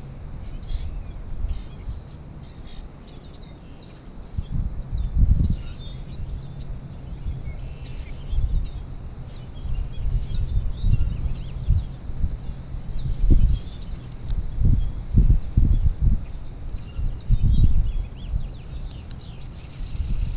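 Small birds chirping and trilling throughout, over irregular low rumbling gusts of wind on the microphone.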